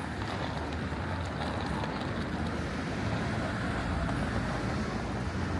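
Steady street ambience dominated by the low rumble of passing road traffic.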